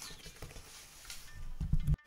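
Hand kneading soft dough in a ceramic bowl: dull pats and knocks of dough and knuckles against the bowl, building to a cluster of heavy low thumps that is cut off suddenly near the end.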